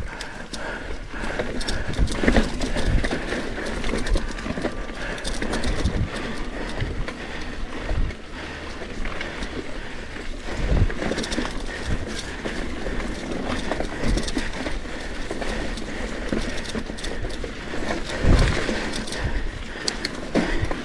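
Trek Fuel EX 9.7 full-suspension mountain bike climbing a rocky trail: tyres rolling and bumping over rock, with irregular knocks and rattles from the bike. The rider breathes hard from the effort of the climb.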